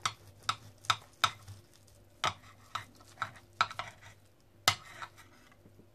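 A knife slicing a baked meat roll in a ceramic baking dish: about ten sharp, irregular clicks and knocks as the blade works through the crust and touches the dish.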